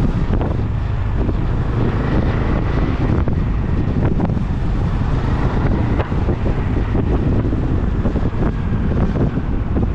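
Wind buffeting the microphone while a Benelli Imperial 400 motorcycle is ridden at town speed, its single-cylinder engine running steadily underneath the gusty rumble.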